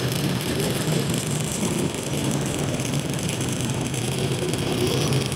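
Jasic ARC 200 inverter stick welder burning a 3.2 mm electrode at about 150 A: the arc's steady crackling and hissing, with a low hum underneath.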